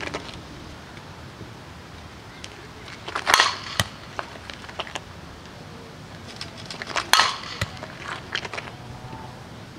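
Fastpitch softball bat striking pitched balls twice, about four seconds apart, each a sharp crack with a short ring. Fainter clicks fall between the hits.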